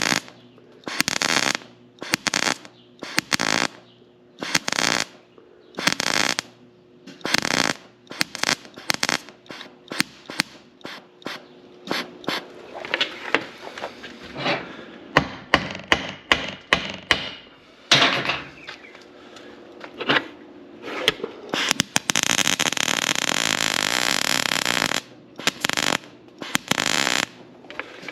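Arc welding in short crackling bursts, about one a second, building up weld on a broken stud sheared off below the surface of a cutter bar; near the end there is one longer run of about three seconds. A steady hum runs underneath.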